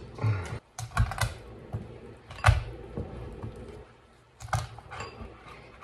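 A kitchen knife cutting through a raw rabbit's rib cage and backbone on a wooden cutting board: a run of irregular sharp knocks and cracks, the loudest about two and a half seconds in.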